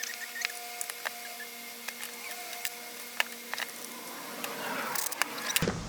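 Scattered light clicks and taps of metal parts being handled and fitted as an electric demolition hammer is put back together, with a rustling noise building near the end.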